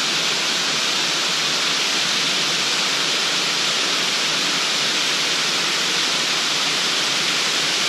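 Rushing water of a small stream running over a shallow riffle close by: a steady, even hiss with no breaks.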